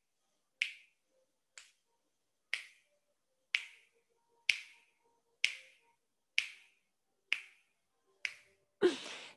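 Nine short, sharp clicks, evenly spaced about once a second, keeping count through a held breath in a hypopressive exercise.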